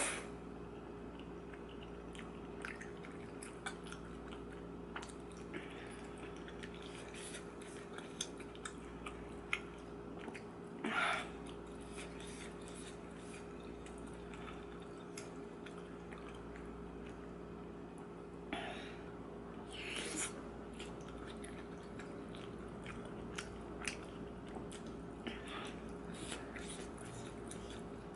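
Close-miked chewing and small wet mouth sounds of someone eating tteokbokki, with scattered soft clicks and a few short, louder smacks or slurps. A steady low hum runs underneath.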